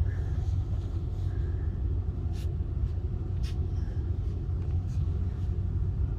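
Steady low rumble of a car, heard from inside the cabin, with a few faint light clicks over it.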